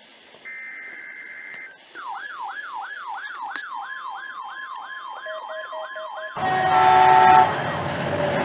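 Electronic siren yelping in rapid rising-and-falling sweeps, about three a second, after a brief steady two-tone beep. About six seconds in, it gives way to a louder sound with a low rumble and several held tones.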